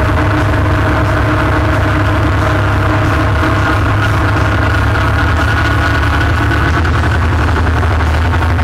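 ATV engine running at a steady speed while riding along a dirt road, loud and even, its pitch holding steady throughout.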